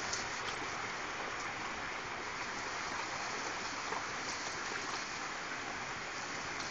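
Torrential rain pouring down in a steady hiss, with runoff water streaming.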